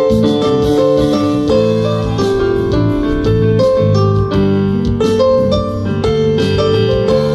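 Live band playing an instrumental passage led by a keyboard, sustained piano-like chords and melody notes over a steady drum beat.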